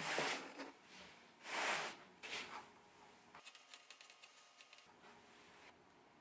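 Wooden boards sliding and rubbing over a workbench in three short scraping bursts, then, from about three seconds in, faint ticks and scratches of a pencil marking along a steel ruler.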